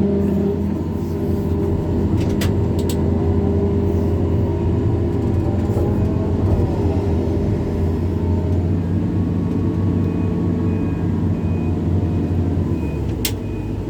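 Backhoe's diesel engine running steadily under work. From about two-thirds of the way in, a backup alarm beeps at an even pace, with a couple of sharp clicks or knocks.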